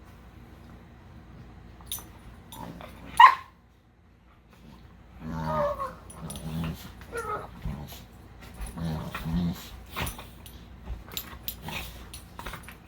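Two dogs playing: one short, loud, high yip about three seconds in, then a run of low play growls mixed with scattered sharp clicks.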